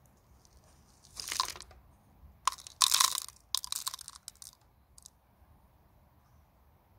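Gritty crunching and scraping of coarse granite grit and potting soil as a rooted hydrangea cutting's root plug is pulled out of a plastic plug-tray cell: a short burst about a second in, then a longer, louder run of crunches from about two and a half to four and a half seconds, with a couple of faint ticks near five seconds.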